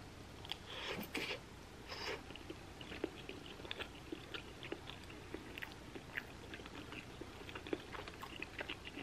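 A person chewing a mouthful of creamy baked macaroni and cheese close to the microphone: many small, soft, wet mouth clicks and smacks, scattered irregularly.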